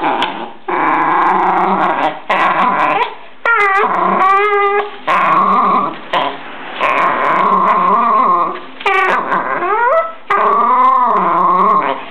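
Jack Russell terrier giving long whining growls in bouts of one to two seconds with short breaks, the pitch rising and falling, while it tugs and snaps at a toy.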